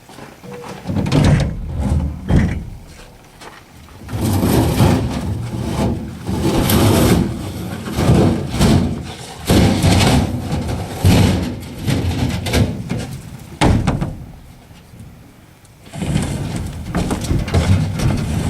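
Bursts of knocking, banging and scuffing a second or two long, broken by short quieter gaps: curbside junk being handled and loaded while scrapping.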